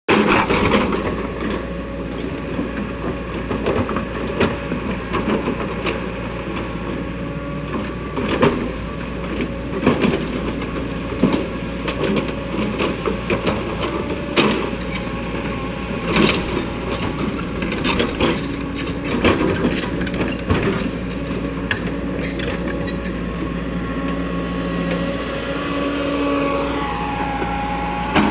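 Excavator's diesel engine running steadily, with repeated metal clanks and knocks from the machine at work. Near the end the engine's pitch slides down and settles.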